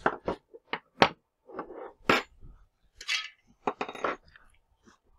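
Metal tooling being taken out of a CNC mini mill's spindle and handled: an irregular run of sharp metallic clinks and knocks, with brief rubbing noises in between.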